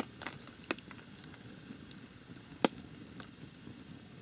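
Scattered sharp pops and ticks at irregular intervals, faint, over a low background hiss, the sort of crackle a small campfire or dripping water makes.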